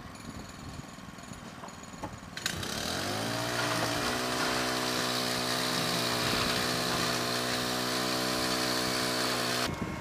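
Backpack concrete vibrator's small engine starting up suddenly about two seconds in, rising in pitch over about a second, then running steadily at high speed. It cuts off abruptly near the end.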